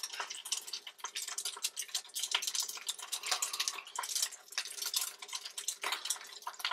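Scrapple slices frying in hot oil in a skillet: a steady sizzle made of many small, quick crackling pops.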